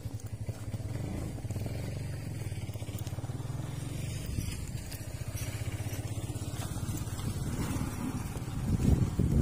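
A vehicle engine running steadily at low speed with a fast, even putter. Louder, uneven rumbling sets in near the end.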